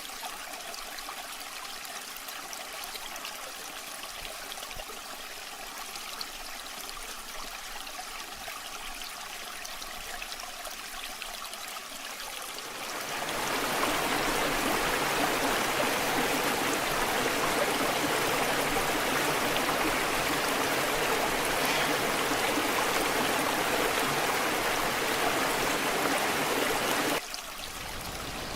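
Waterfall water running: a steady light splashing rush for about the first half, then a much louder, fuller rush that cuts off abruptly near the end, back to the lighter flow.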